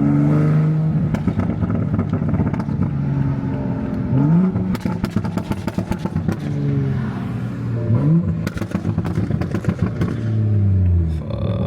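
Toyota Supra's turbocharged B58 inline-six engine on the overrun as the car slows: the revs jump up quickly on two downshifts and sink again, with the exhaust popping and crackling, and settle low near the end.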